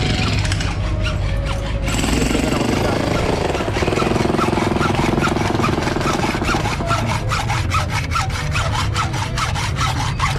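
Hand hacksaw cutting through steel reinforcing bar, in quick, even back-and-forth strokes of about three a second, over a steady low hum.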